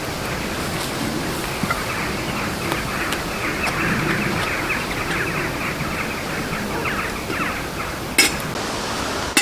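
Dry leaves and clothing rustling as someone shifts and leans over leaf litter, over a steady rushing noise, with one sharp click near the end.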